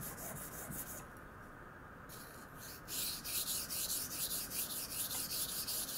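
A 52100 carbon-steel knife blade is scraped back and forth across a 1000-grit waterstone in quick freehand strokes, about four a second, with a pause of about two seconds near the start. The sharpener takes the scratching sound as the sign that the bevel has reached the apex and that a small burr is probably forming.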